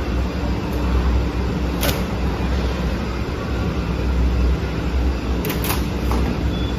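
Steady low hum of PCB factory machinery running, with a few brief sharp clicks: one about two seconds in and two close together near the end.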